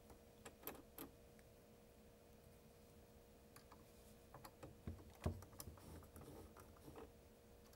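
Faint, scattered clicks and small knocks of a small driver working the set screws of a sewing machine's hook drive gear, lightly tightening them to set the hook timing. The loudest knock comes about five seconds in.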